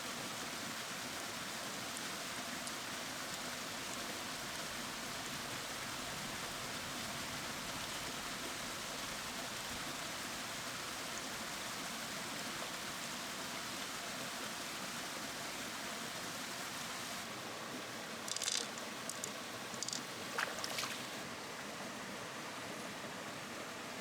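Steady rush of running water, with a few sharp clicks about three-quarters of the way through.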